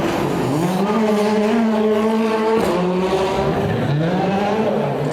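Rally car engine accelerating hard. The revs climb and hold, cut off sharply for a gear change about two and a half seconds in, then climb again.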